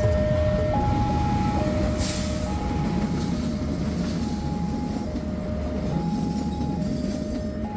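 Train running past with a steady rumble, most likely the Argo Lawu hauled by a CC 206 diesel-electric locomotive, while a two-tone signal alternates high and low about every second. A short hiss comes about two seconds in.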